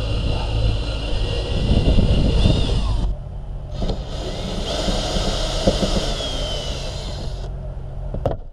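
Ryobi cordless driver running with a long extension bit, backing out trim-panel screws: it whines for about three seconds, stops briefly, then runs again for about three more seconds with its pitch sliding down near the end, over a steady low hum. A sharp click comes near the end.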